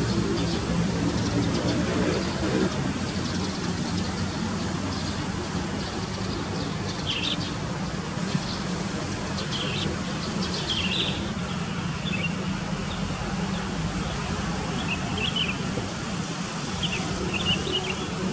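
Outdoor dawn ambience: a steady low rumble of distant traffic, with a vehicle engine fading away in the first couple of seconds. Short high bird chirps come now and then from about a third of the way in, several in quick runs near the end.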